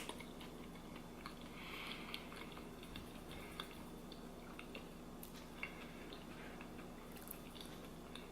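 Close chewing of a mouthful of potato salad mixed with baked beans: soft, wet mouth sounds with small clicks, faint over a low steady hum. A sharp click right at the start is the loudest moment.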